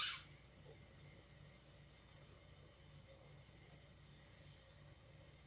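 Sugar syrup boiling in a pan, a steady fine bubbling hiss, with the syrup cooked to one-thread consistency. A brief sharp sound right at the start is the loudest moment.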